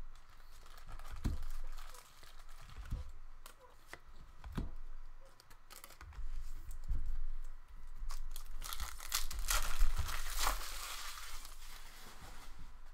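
Plastic wrappers of 2017-18 Upper Deck MVP hockey card packs being torn open and crinkled, with light knocks of cards and packs being handled. The loudest tearing and crinkling comes about two thirds of the way through.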